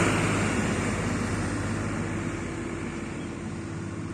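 Motor vehicle engine and road noise: a steady low hum that fades away gradually.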